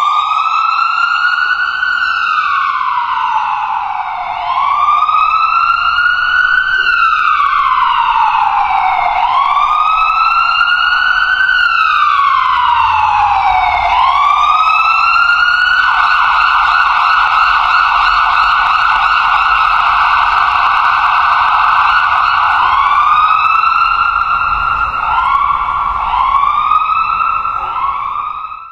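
Electronic ambulance siren, very loud. It first wails, rising and falling slowly about every four and a half seconds. About 16 s in it switches to a rapid warble held near one pitch, then to short, quick rising whoops near the end.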